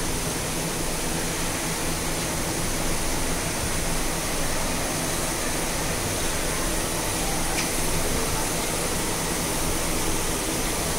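Steady whoosh of electric fans running, with a low steady hum underneath.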